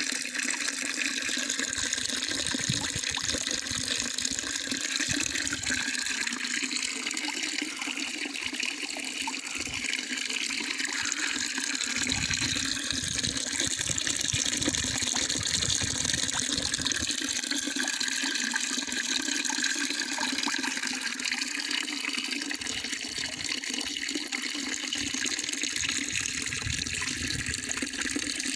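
Running water: a steady, continuous rush and splash that carries on without a break.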